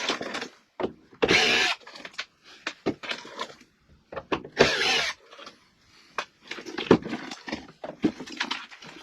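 Furnace teardown work: scattered clicks, knocks and clatter of hand tools and sheet-metal parts, with two short noisy bursts, one about a second in and one near the middle.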